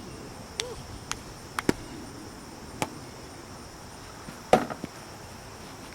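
Insects, crickets by the sound, chirring steadily in a high even drone. Over it come several sharp clicks and knocks, the loudest about four and a half seconds in.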